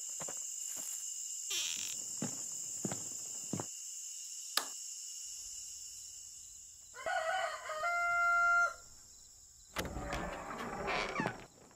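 A rooster crows once, about seven seconds in, over a steady high-pitched whine. Small clicks and taps from metal strips being handled come in the first few seconds.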